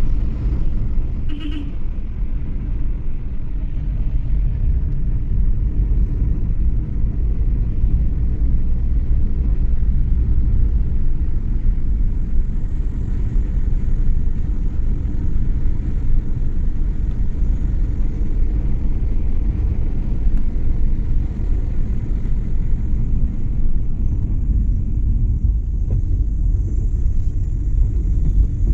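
Steady low road rumble of a car being driven, heard from inside. About a second and a half in, a brief high-pitched sound cuts across it.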